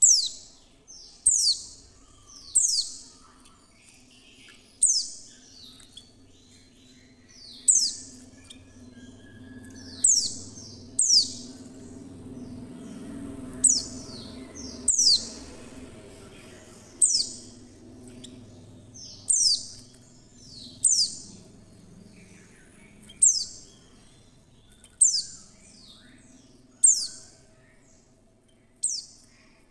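Female white-eye (pleci) giving a run of short, sharp, high chirps, each sweeping downward in pitch, one every one to two seconds. This is the female call that keepers use to set male white-eyes singing. A faint low hum lies underneath.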